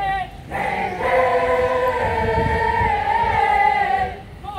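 Formation of Navy hospital corpsmen singing a military marching cadence together in chorus: one drawn-out sung response line of about three and a half seconds.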